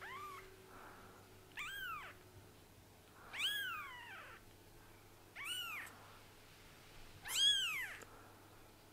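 Very young kitten, its eyes just opened, mewing five times in thin, high-pitched cries about two seconds apart, each rising then falling in pitch; the last is the loudest.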